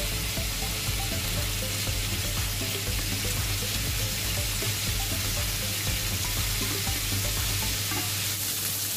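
Cubed raw pork belly sizzling steadily in hot olive oil in a nonstick frying pan, as a wooden spatula spreads the pieces around.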